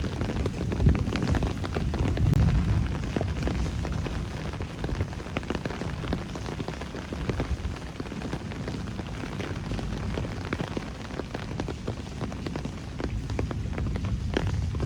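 Steady rain, many close drops ticking and splashing. A low rumble underneath swells in the first three seconds and then settles.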